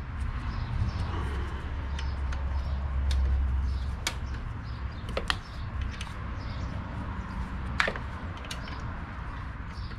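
Several sharp clicks and taps from small metal hardware being handled at a trolling motor's bow mount, the loudest about eight seconds in, over a low steady hum.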